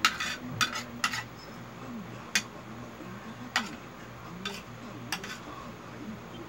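Small plastic toy pieces clicking and clinking against a plate as a child handles them: sharp clicks, several in quick pairs in the first second and a half, then single clicks about a second apart, over a low steady hum.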